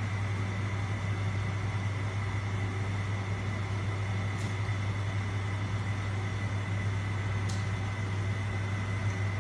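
A steady low machine hum with a thin, faint high tone over it. Two faint clicks come about four and a half and seven and a half seconds in.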